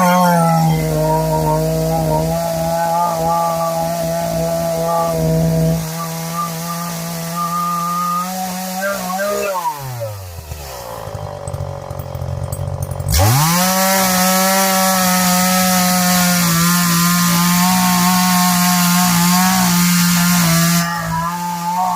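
CS-400 two-stroke chainsaw running at high revs. About nine seconds in, the revs fall away to a low idle. Around thirteen seconds, it is throttled sharply back up to full speed.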